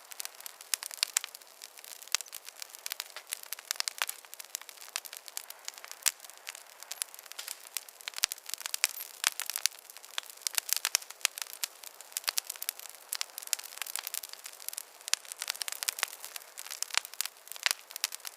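Wood fire crackling in a fireplace: a dense run of sharp, irregular pops and snaps over a soft hiss.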